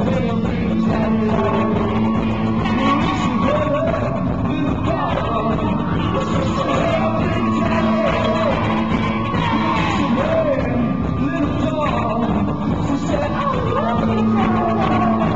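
Live rock band playing with a singer, loud and continuous.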